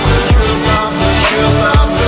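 Background electronic music with a steady beat of heavy bass-drum hits and sustained synth tones.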